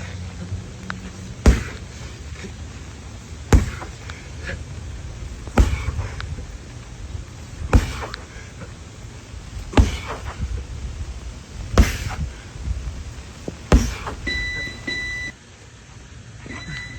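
Repeated heavy chopping strikes in a "chop the wood" drill: seven hard blows about two seconds apart. A steady electronic beep sounds twice near the end.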